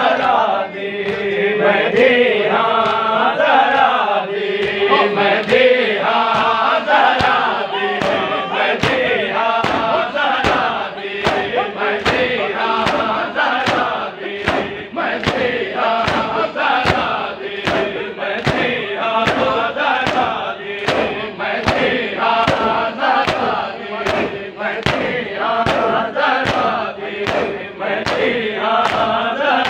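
Men singing a noha in chorus, an elegiac Shia lament, over the massed slaps of chest-beating matam that keep a steady beat of a little more than one slap a second.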